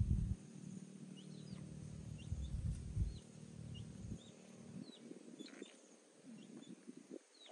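Small birds chirping: short high chirps scattered through, over a low rumbling noise that fades after the first few seconds.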